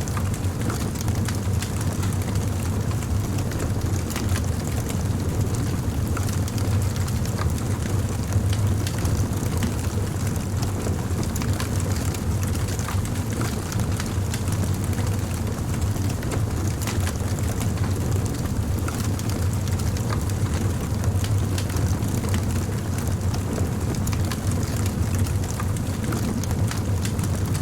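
Campfire burning, with many small crackles and pops over a steady low rumble.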